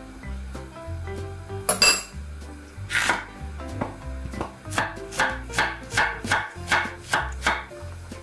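Knife chopping through a Korean zucchini onto an end-grain wooden cutting board: a single cut, then a steady run of about seven even chops, a little under half a second apart, over background music. A sharp clatter comes about two seconds in.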